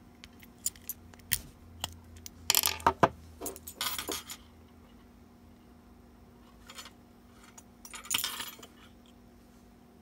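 Small metal clicks and rattles of a 2005 Volvo VNL ignition lock cylinder being worked out of its switch housing and handled, with the key and keyring jangling. The loudest clusters come about two and a half and four seconds in, with another near the end.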